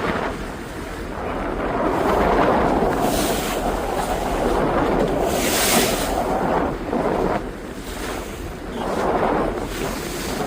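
Wind buffeting the microphone over the rush of sea water around a boat, with a few brief hissing swells about three and six seconds in.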